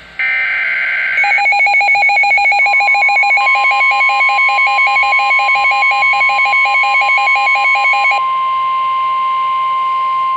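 NOAA Weather Radio alert signal. It opens with a burst of digital SAME header data lasting about a second. Then comes the steady 1050 Hz weather radio warning tone, and over its first seven seconds a second electronic alarm warbles about four times a second before cutting off. The signal announces an incoming warning broadcast.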